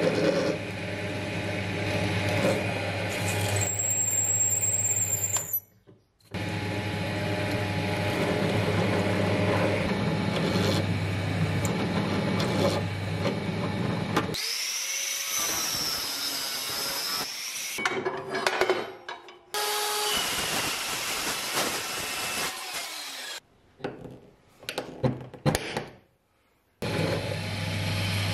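Benchtop drill press running with a steady motor hum while its bit drills holes in a flat steel bar, with a brief high squeal of the bit cutting steel about four seconds in. In the middle stretch the hum drops away, leaving scraping and cutting sounds of the bit in the steel and a few short silent gaps, and the motor hum returns near the end.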